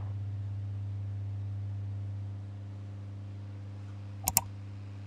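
Hot air rework station running with a steady low electrical hum, which drops a little about two seconds in. Two quick clicks come about four seconds in.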